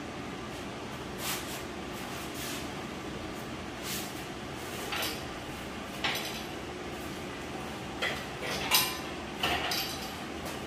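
Scattered metal clinks and clanks, about eight in all, over a steady shop hum, from an engine hanging on a hoist chain being worked into a Chevy pickup's engine bay.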